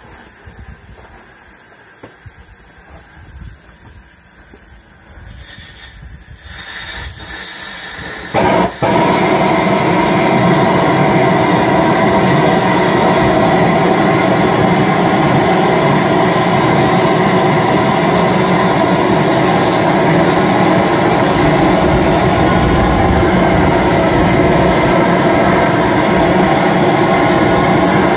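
Large antique Fairbanks-Morse single-cylinder engine: after a quieter stretch, a loud steady mechanical rush comes on suddenly about eight seconds in and holds without a break.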